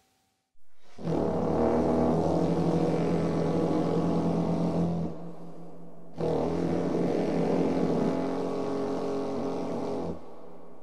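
Outro music of deep, droning held tones rich in overtones, rising in about half a second in. It comes in two long swells, dipping briefly about five seconds in before the second swell.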